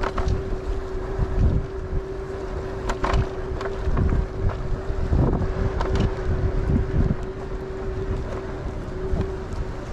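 Riding an electric scooter: wind buffets the microphone in a heavy low rumble, over a steady motor hum that stops shortly before the end, with a few short knocks and rattles from bumps in the path.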